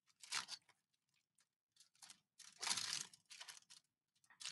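Aluminium foil wrapped around a cardboard tube crinkling faintly as it is handled and pressed to the eye, in short bursts: a brief one near the start and a longer stretch around the middle.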